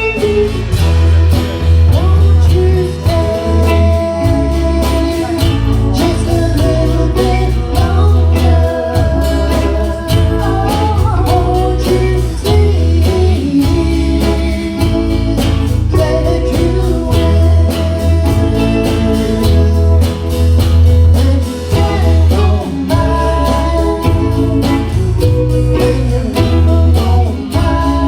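Live band playing a country-blues style song: singing over guitar, a strong bass line and a steady drum beat.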